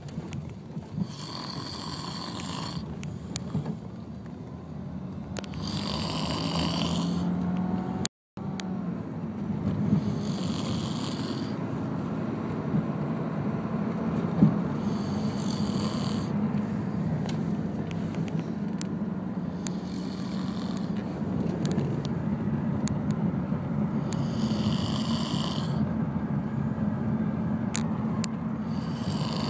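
A person snoring: a steady low, rattling snore, with a hissing breath about every four and a half seconds. The sound cuts out for a split second about eight seconds in.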